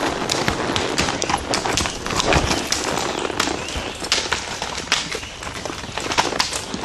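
Hooves of two walking horses, a Quarter Horse and a Tennessee Walking Horse, knocking and clattering irregularly on loose stones of a rocky creek bed.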